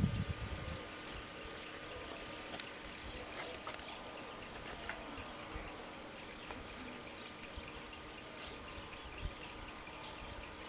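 Crickets chirping steadily, about four chirps a second, over a faint steady hum.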